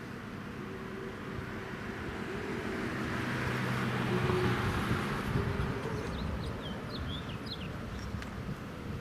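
A vehicle passing by, its sound swelling to a peak about halfway through and then easing, with a few short bird chirps near the end.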